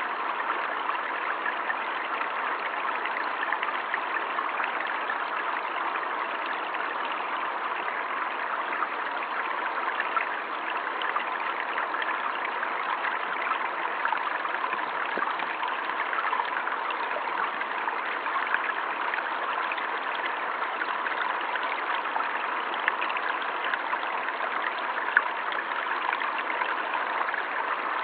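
River water flowing with a steady rush.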